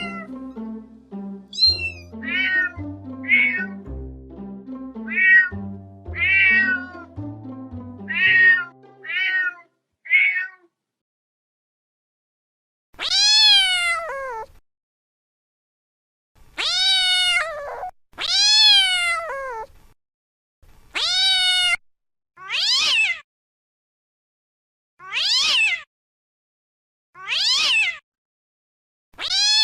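Cats meowing repeatedly. For the first ten seconds or so, short high meows sound over background music. After a brief pause come a series of longer, louder meows every two to three seconds, without music.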